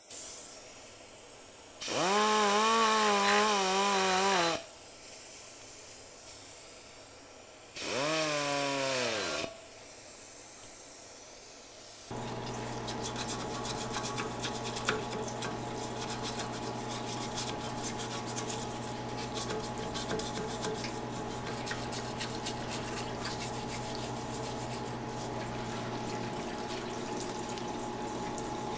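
Small pneumatic die grinder run twice, each time whining up to speed and winding down, working on an aluminium motorcycle cylinder head. From about twelve seconds in, a parts washer's pump hums steadily while solvent splashes over the head as it is cleaned.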